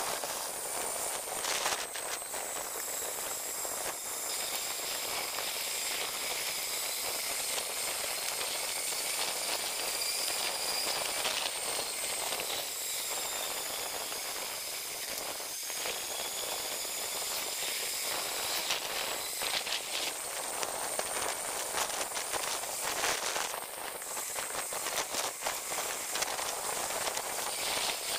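Steady hiss of a bicycle rolling on asphalt, tyre and air noise as the rider cruises along. A faint, thin high whine drifts slowly up and down in pitch, and a few clicks come in the second half.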